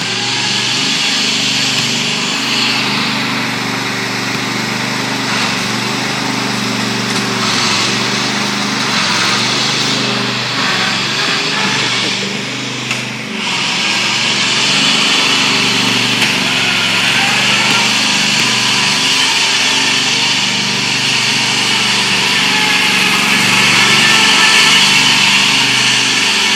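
Lawn mower engine running steadily, its pitch rising and falling a little, with a brief dip in level about halfway through.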